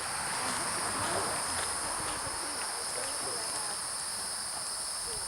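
Steady, high-pitched chorus of insects shrilling without a break, with faint distant voices underneath.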